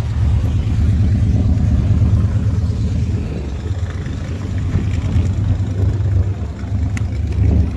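A vehicle engine running, a steady low rumble.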